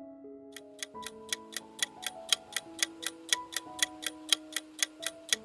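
Countdown-timer sound effect: fast, even clock ticking, about five ticks a second, starting about half a second in, over a soft background melody of held notes. It marks the time given to choose an answer.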